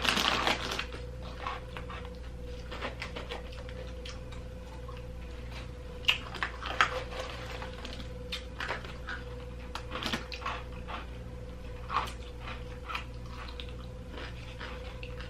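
Scattered small clicks, taps and crinkles of people eating and handling snack containers, over a steady electrical hum.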